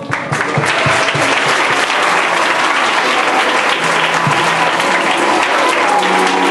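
A large audience of schoolchildren applauding: many hands clapping, starting suddenly and continuing steadily.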